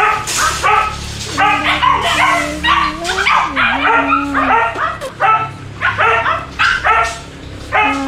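Several small caged dogs barking and yapping over and over, with drawn-out whines between the yaps.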